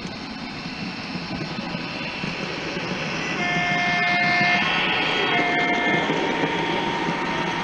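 Model train with a sound decoder passing close by: a steady running noise that grows louder as the locomotive approaches, and two chord-like horn blasts a little after the middle, the first about a second long, the second shorter.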